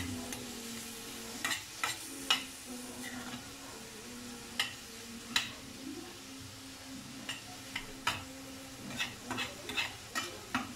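Metal spoon stirring chicken, onion and tomato as they sauté in a stainless steel pan, with irregular clacks and scrapes of the spoon against the pan over a light sizzle of frying.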